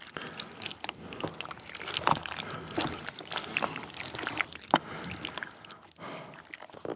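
Wooden chopsticks stirring rice cakes and fish cakes through thick spicy tteokbokki sauce in a plastic takeout tub: wet squelching and sloshing with many scattered sharp clicks.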